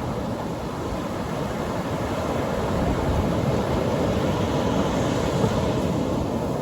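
Atlantic Ocean surf breaking on a beach: a steady rumbling wash of waves that swells a little past the middle.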